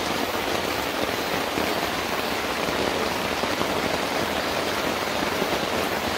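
Heavy rain falling steadily, an even hiss with no let-up.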